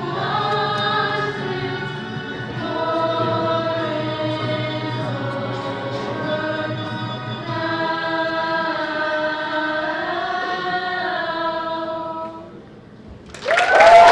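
Middle school choir singing long held notes in several parts, stopping about twelve and a half seconds in. Loud applause breaks out near the end.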